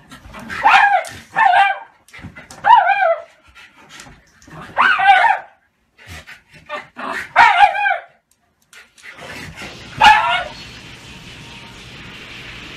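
Shiba Inus barking in rough play: about half a dozen loud barks, each about half a second long and rising then falling in pitch, spaced irregularly. Near the end the barking stops and a steady quieter hiss takes over.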